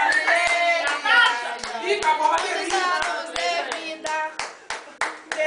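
A group of voices singing a birthday song together while clapping in time, a steady beat of about three claps a second.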